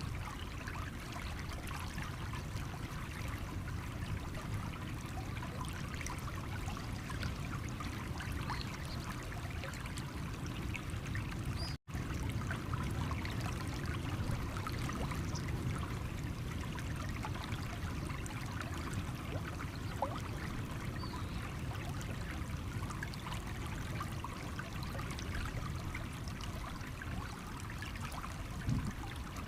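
Stream water flowing and trickling over stones, a steady rush with small splashes throughout. The sound cuts out for an instant about twelve seconds in.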